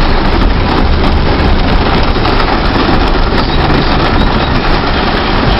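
Car driving through flooded streets in heavy rain: a steady, loud rush of rain and water over the low rumble of the car.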